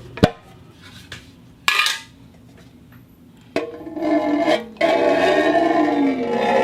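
Steel follow-focus parts sliding against a steel case: a sharp click, a short scrape about two seconds in, then from about three and a half seconds a loud, sustained metallic rubbing squeal whose pitch wavers up and down, breaking off once briefly.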